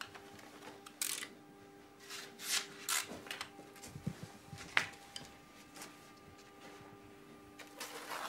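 Pro clima Tescon Vana airtightness tape being pulled off its roll and cut to length: several short rustling noises and one sharp click about five seconds in, over a faint steady hum.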